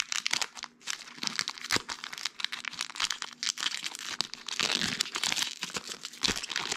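Foil Pokémon booster pack wrapper crinkling and tearing as it is ripped open by hand, a dense run of crackles throughout.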